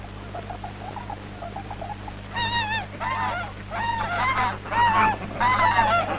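Snow goose honking: after about two seconds of faint short calls, a run of loud, high-pitched honks, roughly two a second.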